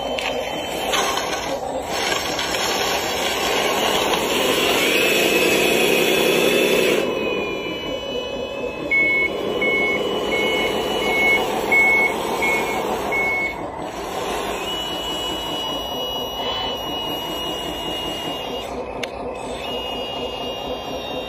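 Remote-control model wheel loader with a steady engine-like drone that swells and rises in pitch for a few seconds. A reversing beeper sounds about once or twice a second for several seconds in the middle.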